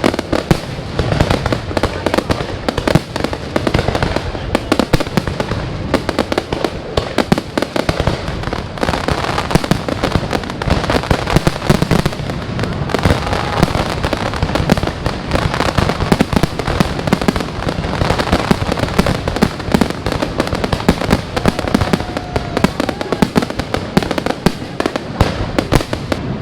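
Large New Year fireworks display: a continuous barrage of aerial shells bursting and crackling in rapid succession, with no break.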